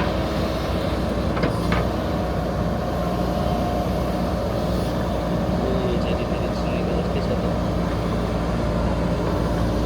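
Diesel engine of a JCB earthmover running steadily under work, with two brief knocks about a second and a half in.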